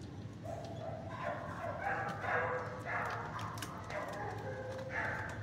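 A dog whining and yipping in a run of short, wavering cries, with a few faint clicks and a steady low hum underneath.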